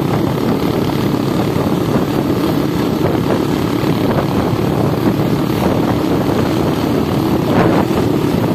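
Motorcycle engine running steadily at cruising speed, with road noise, heard from the rider's own bike.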